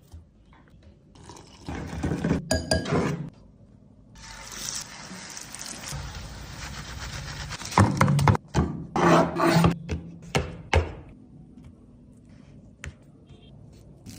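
Kitchen food-preparation sounds: a steady liquid hiss like pouring or sizzling for a few seconds, with bursts of utensil and dish clatter before and after it.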